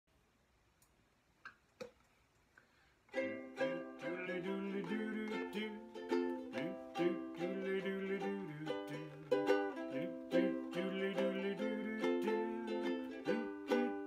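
Ukulele strummed in chords, starting about three seconds in after a few faint clicks.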